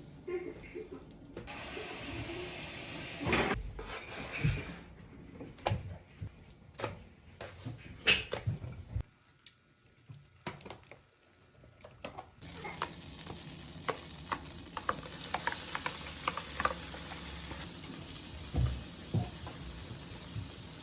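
Food sizzling in a frying pan, with scattered clicks and knocks of utensils against the pan and dishes. Near the middle it drops away for a few quiet seconds, then the sizzling comes back steadier.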